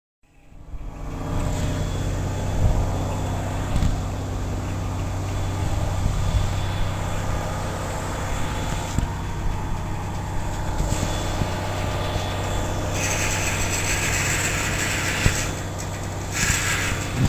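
Heavy truck engine running steadily at a constant speed. A loud hiss joins it about three-quarters of the way through and lasts a few seconds.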